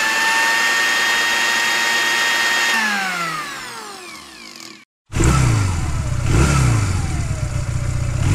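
Electric blender motor running with a steady high whine, then winding down with a falling pitch about three seconds in and dying away. After a brief gap, a passing motorcycle's engine revs, its pitch rising and falling several times.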